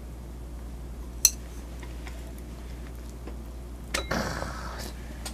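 Wooden chopsticks clicking against a ceramic plate while tearing into a chive pancake, with one sharp click about a second in. Near the end another click comes, then a brief soft rustling as a torn piece is pulled away.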